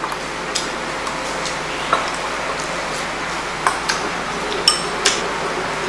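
Scattered light clicks and taps of eating utensils against bowls and plates during a meal, over a steady background hiss.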